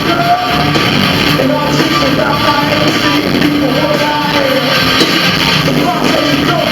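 Live rock band playing loudly, with a singer's voice over the band.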